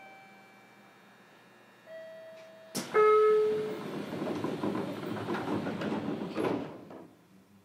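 Passenger doors of a JR Kyushu 303 series train closing: short chime tones, then a sharp clack about three seconds in and a loud rushing slide of the doors lasting about four seconds, fading out with a last knock near the end.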